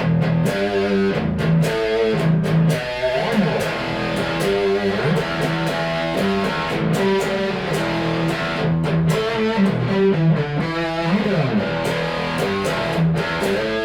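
Cort MBC-1 electric guitar played through a Diezel VH4 preamp pedal on channel 1, with master and gain set halfway, picked up by a phone microphone. It plays a continuous riff of chords and single notes with pitch slides.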